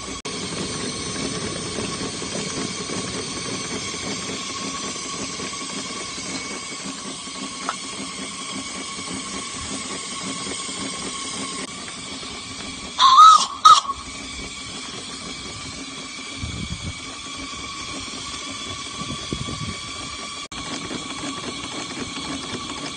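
Small live-steam model locomotive in steam, hissing steadily, with two short, loud whistle blasts about thirteen seconds in.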